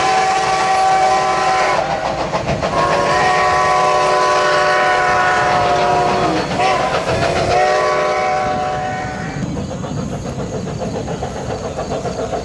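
Steam locomotive's multi-note chime whistle blowing the grade-crossing signal. A long blast ends about a second and a half in, then come a long, a short and a long blast. After it the train runs on more quietly.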